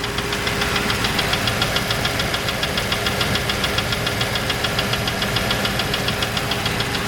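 Land Rover Discovery II 3.9 V8 idling with a rapid, even knocking tick, several strokes a second. A local mechanic takes it for a failed big-end bearing, while the owner suspects the top end (rockers, lifters or valve gear).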